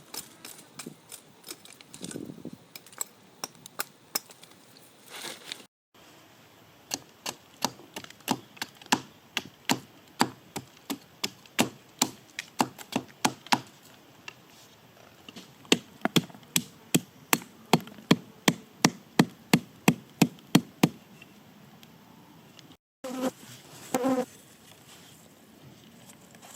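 A hand tool striking over and over in runs of sharp knocks, about two to three a second, with short breaks between runs.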